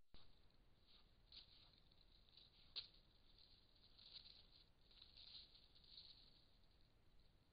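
Faint, irregular rustling and crackling of dry fallen leaves as a white-tailed deer noses through them while feeding, with one sharper crackle about three seconds in.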